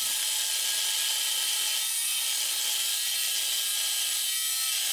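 Electric angle grinder cutting through steel rebar: a steady, high-pitched grind that holds an even level throughout.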